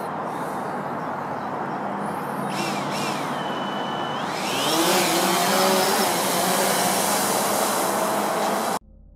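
DJI Phantom 3 quadcopter's motors starting: brief chirping tones, then a rising whine as the propellers spin up about four and a half seconds in, settling into a steady loud whir with rushing hiss. The sound cuts off suddenly near the end, leaving faint music.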